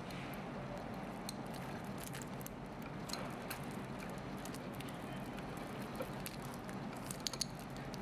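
Light clicks and rattles of a stainless steel link watch bracelet being flexed and handled, scattered and irregular, a few sharper ones about seven seconds in, over a steady low hum.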